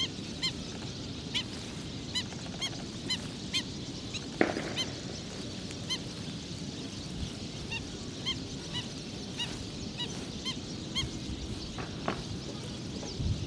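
Black-winged stilts calling: short single call notes repeated unevenly, roughly twice a second. A sharp click sounds about four seconds in and another about twelve seconds in.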